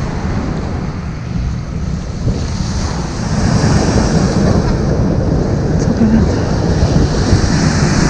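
Small waves breaking and washing up a sandy beach, with wind buffeting the microphone as a low rumble. The surf grows louder about three seconds in.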